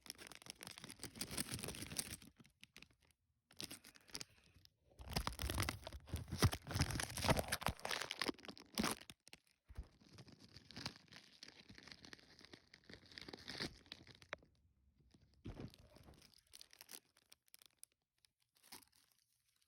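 Lego packaging being torn open and crinkled by hand in irregular bursts, loudest from about five to nine seconds in, then dying away to a few brief rustles.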